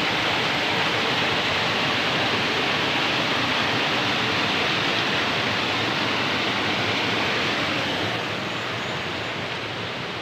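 Steady rush of running water that drops to a lower level about eight seconds in.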